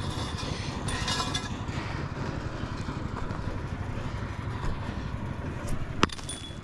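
A tool strikes a crumbling concrete fence-post footing once, sharply, about six seconds in, with a short metallic ring after the hit; a brief scraping rattle comes about a second in.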